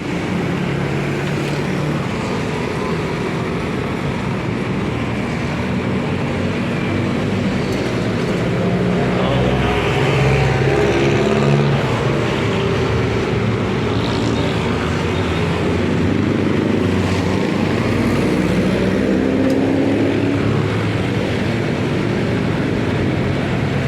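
Motorcycle engine running while riding in road traffic, its pitch rising and falling as the speed changes, over steady traffic noise.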